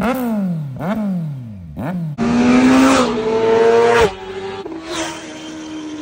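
A Kawasaki Z900's inline-four engine is revved in place with short throttle blips, each rising sharply and falling back. Then, louder, a sport motorcycle's engine is held at high steady revs; its pitch steps up once, then drops and gets quieter about four seconds in.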